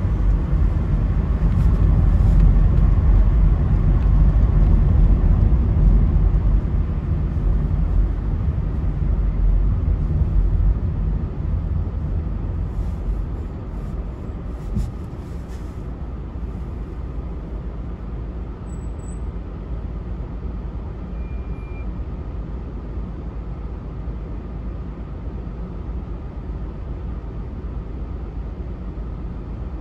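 Car on the move: a steady low rumble of engine and tyres on the road. It is louder for the first ten seconds or so, then drops away and settles quieter, with a brief knock about halfway.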